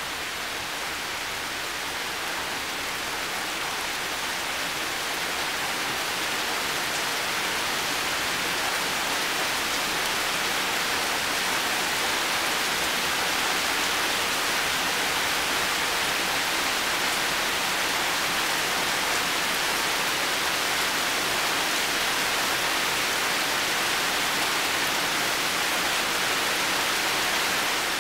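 Heavy rain falling steadily, a dense even hiss with no single drops standing out; it grows slightly louder over the first several seconds.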